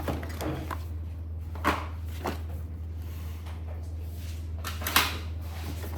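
A few light knocks and clicks as vacuum accessories and packaging are handled and set down, over a steady low hum.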